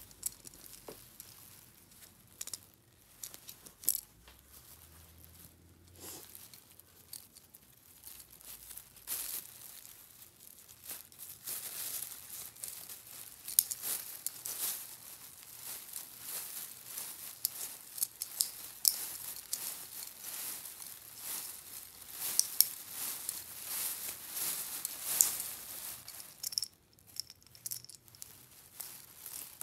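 A thin plastic shopping bag crinkling and rustling as hands twist and handle it, with irregular sharp clicks. It is sparse at first, then becomes steadily busier from about a third of the way in, and quietens shortly before the end.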